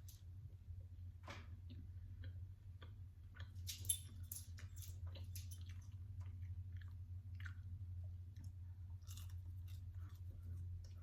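Close-miked chewing and mouth sounds of someone eating chicken nuggets: irregular soft smacks and crunches, with one sharper click about four seconds in. A steady low hum runs underneath.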